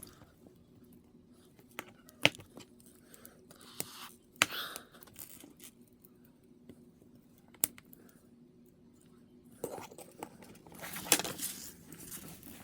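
Scattered handling noises over a faint steady hum: a few sharp clicks and brief rustles, the loudest a click about 11 seconds in.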